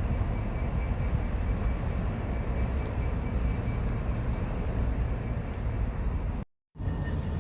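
Steady low rumble of a train running past, with a faint high whine over it. The sound cuts out suddenly about six and a half seconds in. It resumes as another train passage with thin high-pitched wheel squeals starting.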